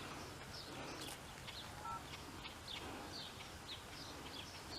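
Small birds chirping: many short, high chirps, several a second, over faint outdoor hiss.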